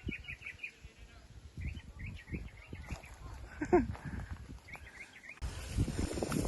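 Small birds chirping in short twittering bursts, several times, over low thumping rumble on the microphone; one short call that bends in pitch sounds about three and a half seconds in.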